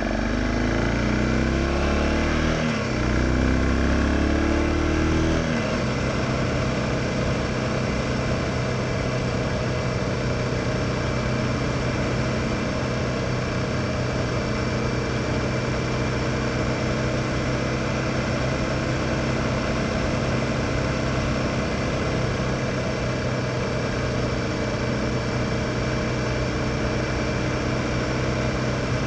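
2007 BMW F650 GS's single-cylinder engine pulling under acceleration, its pitch rising with a gear change about three seconds in. A little over five seconds in it settles into a steady cruise at an even engine note.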